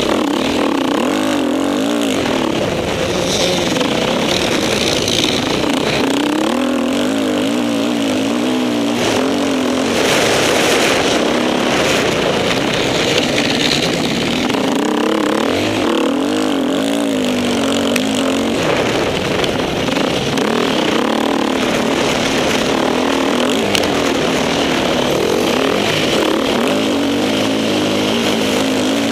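Off-road motorcycle engine running hard at racing speed, its pitch rising and falling over and over as the rider opens and closes the throttle through the bends, with a constant rushing hiss over it.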